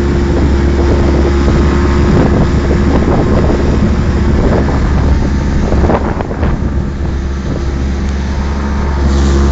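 Motorboat under way, its Mercury 90 outboard running steadily at cruising speed, with wind buffeting the microphone over a rush of water along the hull. The wind noise eases briefly about six seconds in.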